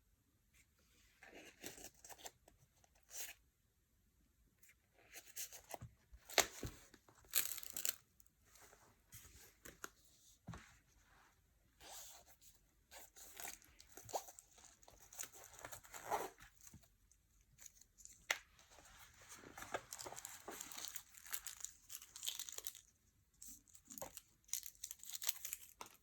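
Packaging being torn open and crinkled by hand, in irregular rustling bursts with short pauses.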